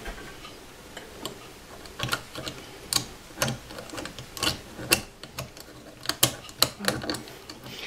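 Wire lamp harp and socket fittings clicking and rattling as hands work the harp into place on the lamp, in a string of irregular light clicks and taps that come thicker after the first two seconds.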